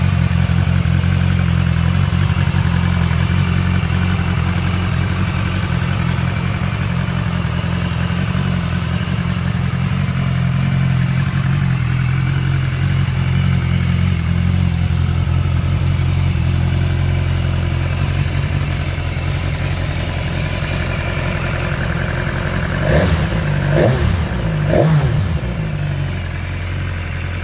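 BMW S1000XR's inline-four engine idling steadily, then blipped three times in quick succession near the end, each rev rising and falling back to idle.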